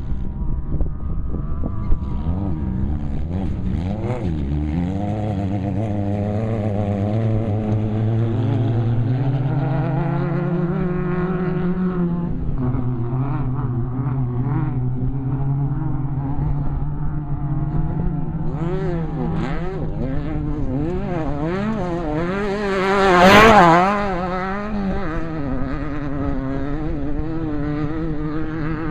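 Off-road desert race vehicles' engines running hard, their pitch climbing and falling as they accelerate and shift. One vehicle passes close about two-thirds of the way through, the loudest moment, its note dropping as it goes by.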